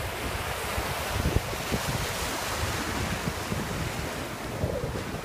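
Surf washing over shallow water, a steady rush, with wind buffeting the microphone.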